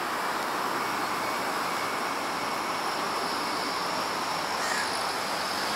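Steady roar of city street traffic, an even noise with no clear pitch that starts and stops abruptly.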